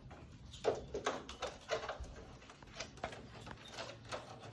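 Faint, irregular plastic taps and clicks as an air conditioner's air filter is slid back into place in the indoor unit.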